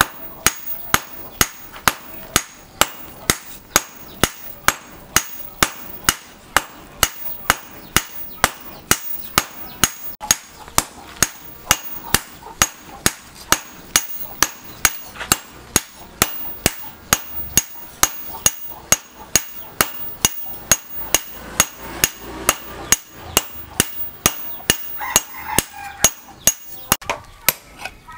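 Hand hammer forging a hot steel billhook blade on a steel anvil: steady blows, about two to three a second, each with a short metallic ring. The blows stop about a second before the end.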